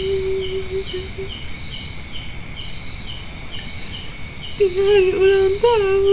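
Crickets chirping steadily about twice a second over a constant high insect drone. A loud held tone with overtones fades out in the first second, then returns about four and a half seconds in, wavering and bending in pitch.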